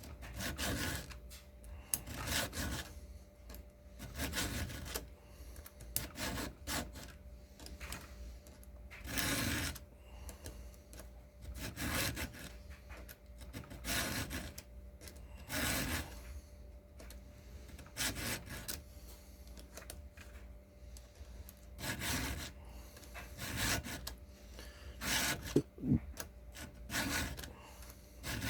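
Hand file rasping across the cutters of a dull chainsaw chain to sharpen it, in separate strokes roughly once a second at an uneven pace.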